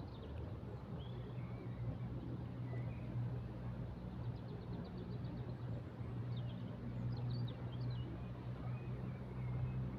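Small songbirds chirping intermittently, with a quick even trill about halfway through and a cluster of chirps soon after. Underneath is a steady low droning hum.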